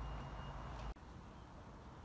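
Faint outdoor background noise with a low hum and a faint thin high tone, which cut off abruptly about a second in, leaving a quieter, even background hiss.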